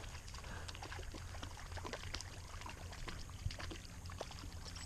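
River water running and trickling, with scattered small irregular splashes and ticks over a steady low rumble.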